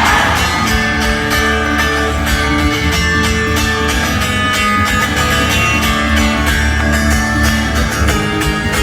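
Instrumental passage of a hard rock song: guitars playing sustained chords over a steady drum beat, with no singing.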